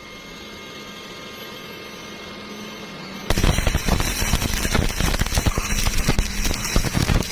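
Electric arc welder humming, then the arc is struck about three seconds in and crackles loudly with rapid, irregular snapping as the weld is laid.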